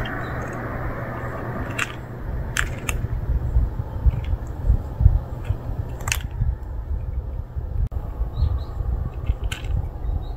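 Two cats crunching dry kibble, with a few sharp crunches and clicks, over a steady low rumble.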